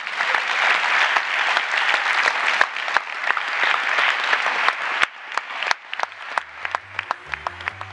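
Audience applauding: a dense, full round of clapping that thins to scattered claps about five seconds in. Low music notes come in near the end.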